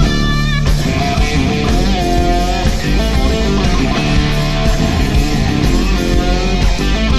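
Instrumental rock band playing, with a lead electric guitar holding sustained, bending notes over bass and drums.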